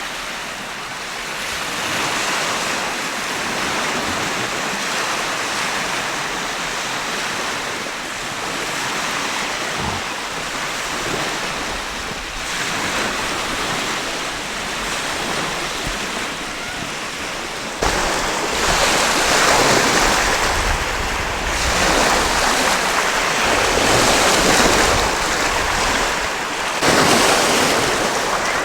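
Lake Michigan waves washing ashore: a steady rush that swells and eases every few seconds. About two-thirds of the way in, wind starts buffeting the microphone, adding a low rumble.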